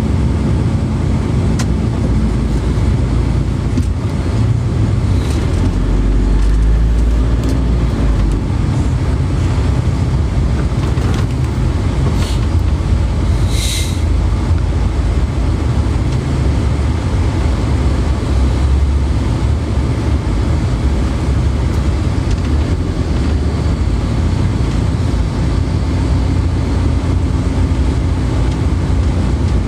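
Steady low rumble of a moving vehicle, with a few brief clicks about 12 and 14 seconds in.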